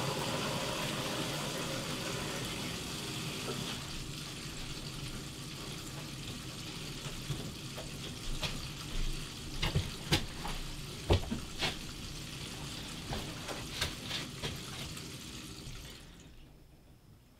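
Water rushing through the newly plumbed whole-house filter line with the house faucets open, purging air and debris: a steady hiss, louder for the first few seconds, then softer with scattered clicks and knocks, fading away near the end.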